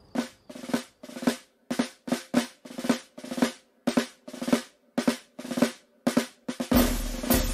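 Marching band snare drums playing a march cadence of short rolls and accented strokes in a steady rhythm. Near the end a bass drum and fuller percussion come in, leading into the brass entry of the march.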